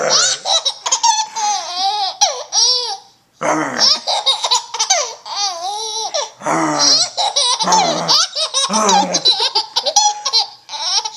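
Six-month-old baby laughing hysterically in long, high-pitched bouts, breaking off briefly about three seconds in and again about six seconds in.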